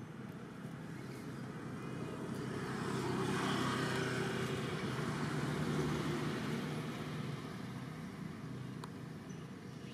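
A motor vehicle passing by: its sound rises over a couple of seconds to a peak in the middle, then fades away.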